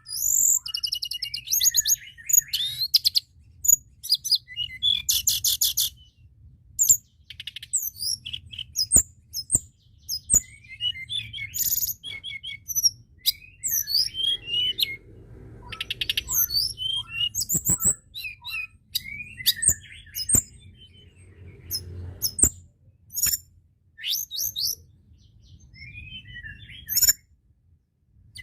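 Tledekan gunung singing a rapid, varied song of high chirps, slurred whistles and fast buzzy trills in short phrases with brief gaps, over a faint low hum.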